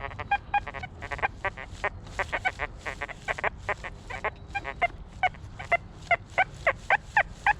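XP Deus 2 metal detector giving a rapid run of short chirping tones that vary in pitch, about three a second near the end, as it sweeps. The chatter comes from iron and hot, mineralised clay soil, which makes the detector run unstable at low discrimination.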